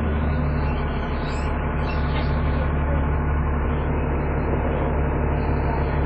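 Dennis Trident 2 double-decker bus's engine and drivetrain running hard under load, heard from inside the passenger saloon: a steady, even drone with the vacuum-cleaner-like whine that bus enthusiasts call "hoovering".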